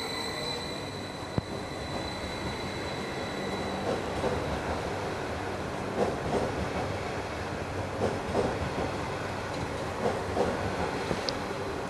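Trenitalia ETR 170 (Stadler FLIRT) electric multiple unit moving slowly through the station. A steady high whine fades out about four seconds in, then the wheels knock over rail joints in pairs about every two seconds.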